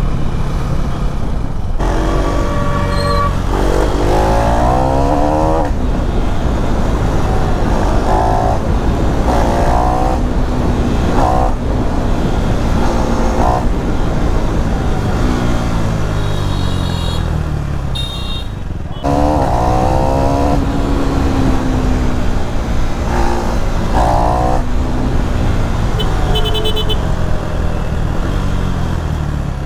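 KTM Duke 390 single-cylinder engine pulling hard through the gears, revving up and shifting again and again, with the revs falling back under engine braking between pulls. A vehicle horn toots briefly twice, past halfway and near the end.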